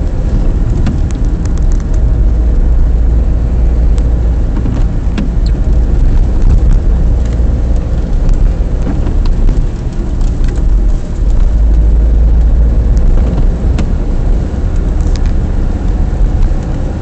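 A moving car's engine and road noise heard inside the cabin: a loud, steady low rumble with scattered small clicks.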